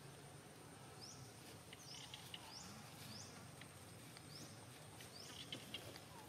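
Faint outdoor ambience: a steady high insect drone with a short, high, upward-flicking chirp repeated about eight times, starting about a second in and stopping near the end.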